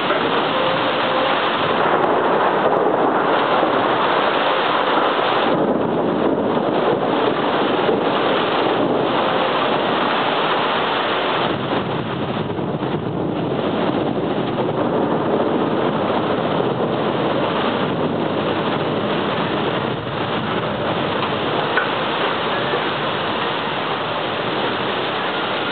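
Rain falling steadily in a thunderstorm, a loud, even hiss.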